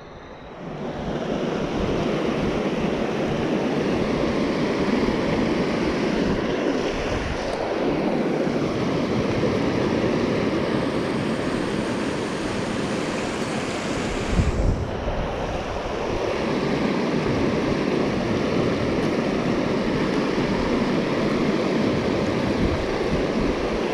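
Steady rush of shallow river water running over rocks and a small rapid, with a brief low buffet of wind on the microphone about fifteen seconds in.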